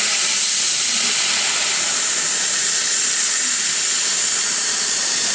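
HT-1325 CO2 laser cutting machine cutting through sheet metal: a loud, steady, even hiss from the assist-gas jet at the cutting head.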